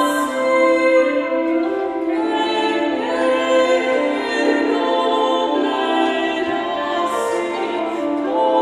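Two women singing early music in sustained lines, accompanied by a bowed viola d'arco and a portative organ holding steady notes beneath the voices.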